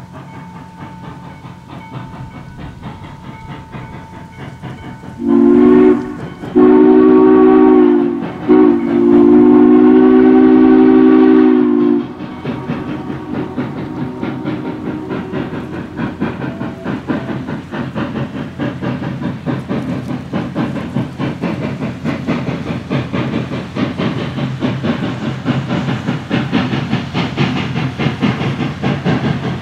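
Western Maryland 1309, a 2-6-6-2 Mallet steam locomotive, working hard with a steady exhaust that grows louder as it nears. About five seconds in, its steam whistle sounds a chord of several notes in three blasts: one short, then two long.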